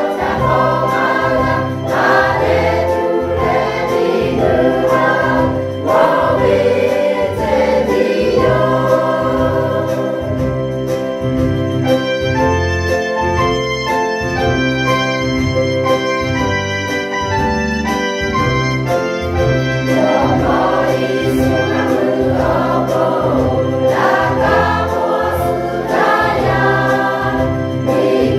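Mixed choir of men and women singing a Lahu hymn, with instrumental accompaniment keeping a steady bass beat.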